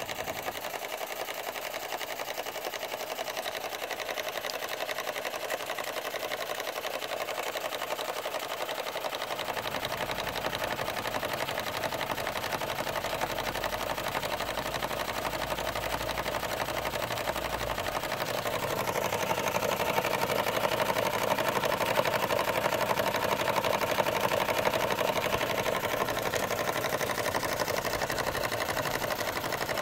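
1925 Bing 1019/1 toy live-steam engine running fast, with a rapid, steady chuffing and clatter from its small cylinder and flywheel. It gets louder about two-thirds of the way through.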